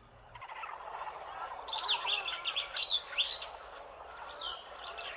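Many birds chirping and calling together, with rapid chirps and short sweeping whistles; the chorus fades in about half a second in and grows busier after that.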